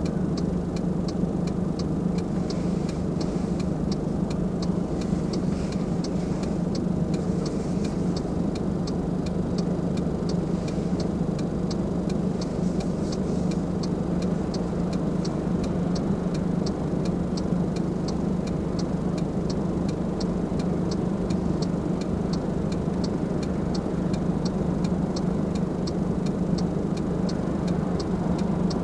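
Car engine idling steadily while the car stands still, with even clicking of the turn signal about two to three times a second.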